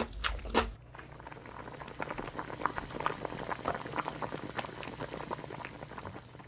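Brief chewing of noodles, then tofu and zucchini doenjang stew bubbling in a black pot: a steady simmer of many small dense pops.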